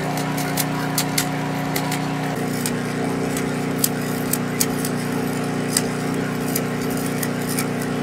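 Stick-welding arc crackling and sputtering, with frequent sharp pops, over the steady hum of the welding machine; the hum changes pitch a little over two seconds in.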